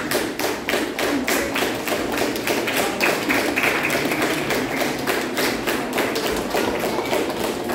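Audience clapping together in a steady rhythm, about four claps a second.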